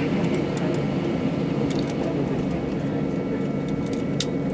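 Cabin noise of an Airbus A320-232 taxiing, heard from a window seat: its IAE V2500 engines at taxi power make a steady hum with a faint high whine. A few light clicks and rattles come through, the sharpest near the end.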